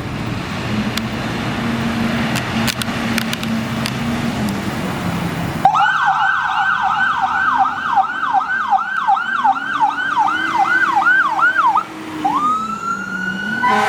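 Heavy engine and road noise for the first half. Then, about six seconds in, the fire engine's yelp siren comes on suddenly, sweeping rapidly up and down about three times a second. Near the end it changes to a single slower rising wail.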